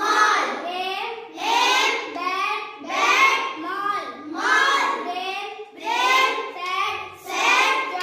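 A child's voice reciting English words aloud in a sing-song reading chant, one word or short phrase about every one and a half seconds.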